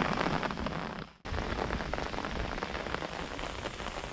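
Heavy rain falling steadily, heard from under an open umbrella. The sound drops out briefly about a second in, then the steady rain carries on.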